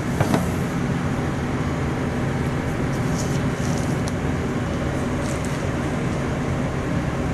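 Steady mechanical droning noise with a constant low hum.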